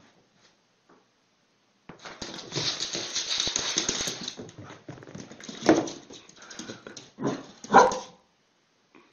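A dog barks three times in the second half, each bark short and sharp. Before the barks there are a couple of seconds of loud rustling, scrabbling noise.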